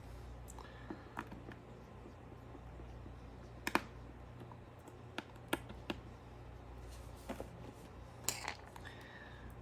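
Scattered light clicks and taps of a small screwdriver and tiny screws against the phone's frame as screws are taken out of a Samsung Galaxy Note 8. The loudest is a double click a little before halfway.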